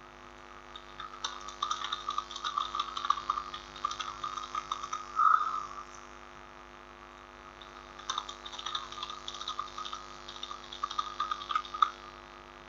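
Computer keyboard typing in two runs of rapid keystrokes, the first from about a second in to about six seconds with one louder key strike near its end, the second from about eight to twelve seconds. A steady electrical mains hum runs underneath.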